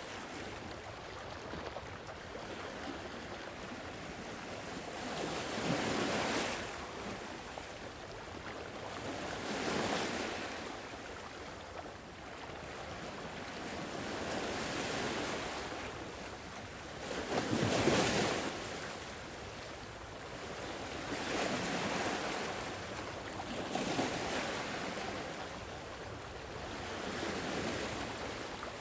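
Sea waves washing onto a shore, each one a swell of noise that rises and falls every few seconds, the largest about two-thirds of the way through.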